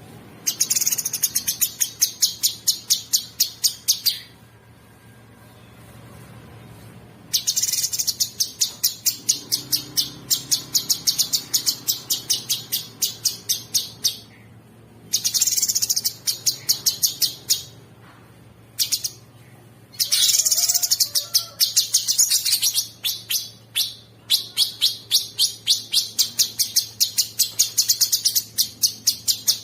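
Cucak sungkok songbird singing long, rapid rattling runs of fast repeated high notes in several bursts of a few seconds each, with short breaks between them.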